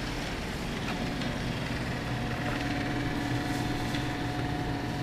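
Steady mechanical hum holding a few even tones, with a higher tone joining about a second in.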